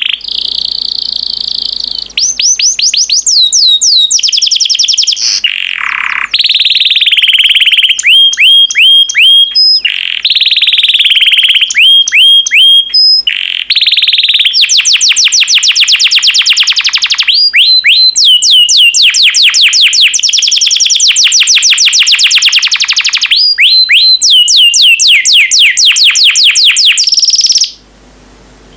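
Yellow domestic canary singing loudly: a long, continuous song of fast trills of repeated down-sweeping notes alternating with steady whistled notes. It breaks off briefly near the end.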